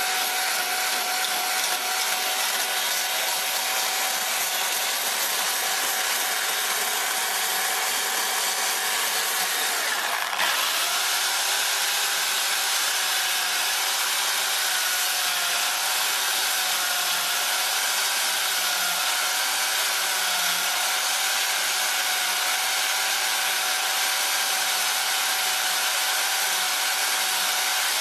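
Stihl chainsaw running steadily at high speed as it cuts into a round log. Its pitch dips and recovers once, about ten seconds in.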